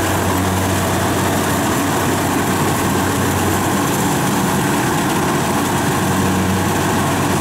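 Kubota DC-70 rice combine harvester running steadily at working speed while cutting and threshing rice: an even engine hum under a dense, steady mechanical noise.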